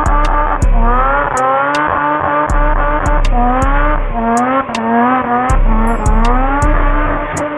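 Rotary-engined burnout car revving hard again and again, each rev a rising sweep lasting about a second, with sharp cracks as each rev drops back, over the rear tyres spinning on the tarmac.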